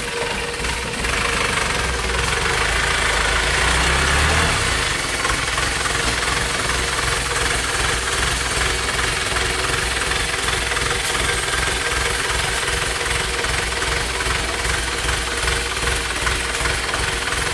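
Light dump truck's diesel engine running with a steady knocking clatter, heavier and a little louder for the first few seconds, then settling to an even idle.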